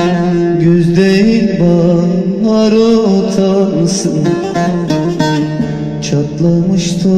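Music from a Turkish song, with plucked string instruments carrying the melody.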